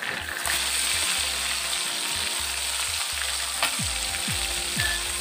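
Masala-coated tilapia frying in hot oil in a kadai: a steady sizzle that swells about half a second in.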